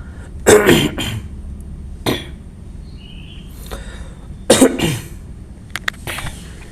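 A man coughing from a cold: two strong coughs about half a second and four and a half seconds in, with a short one between. It is a wet cough, the phlegm hard to bring up.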